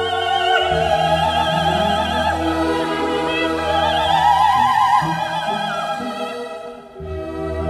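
Background music: operatic singing, a voice held on long notes with wide vibrato over orchestral accompaniment, with a brief pause between phrases near the end.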